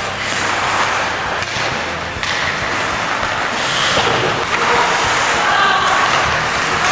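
Ice hockey play: skates scraping and carving the ice, with thuds of sticks and the puck against the boards.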